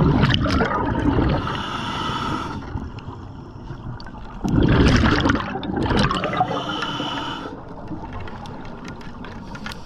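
Scuba diver breathing through a regulator underwater, twice: each breath is a rushing, gurgling burst of exhaled bubbles followed by a hissing inhalation through the regulator.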